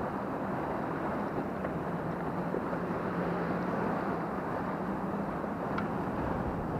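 Steady wash of wind and breaking waves around a small boat, with a faint low hum underneath.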